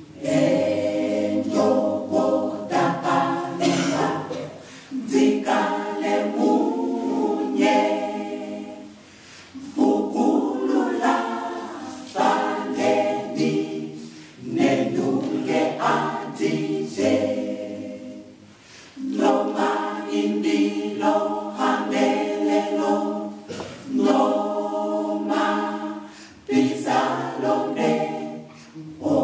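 Mixed choir of men's and women's voices singing a cappella, in phrases of four to five seconds with short breaks between them.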